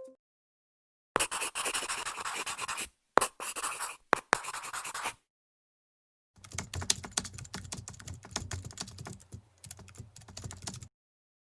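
Rapid keyboard typing sound effects: two short bursts of fast, scratchy clicking, then after a pause a longer run of distinct, heavier keystrokes.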